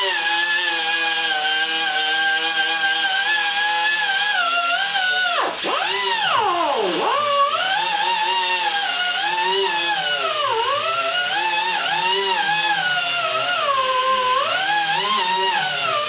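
Small right-angle grinder with a 50–60 grit sanding pad whining at high speed as it levels nickel spray-weld on a cast iron cylinder head. Its pitch sags and recovers as it is pressed into the metal, dropping sharply about six to seven seconds in, and the tool stops right at the end.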